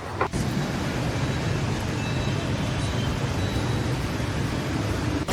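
Steady low rumble of a running engine, with a brief break about a third of a second in.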